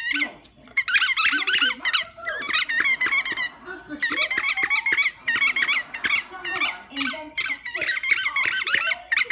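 A dog chewing a squeaky tennis ball, the squeaker sounding in quick runs of short high squeaks, several a second, with a brief pause about three and a half seconds in.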